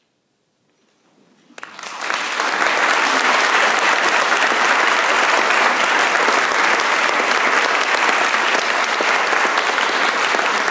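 After a moment of silence, an audience breaks into applause about a second and a half in, swelling within a second to steady, full clapping.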